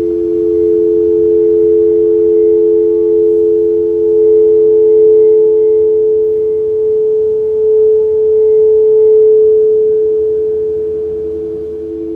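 Sound-bath singing bowls ringing with two steady, sustained tones a few notes apart. The lower tone begins to pulse near the end.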